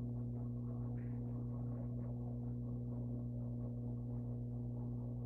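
Steady low electrical hum in the sound system, with faint scattered noises in the room and no speech.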